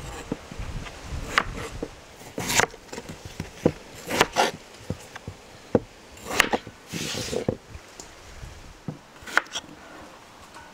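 Knife chopping lamb into small pieces on a wooden board: sharp, unevenly spaced chops, about one a second.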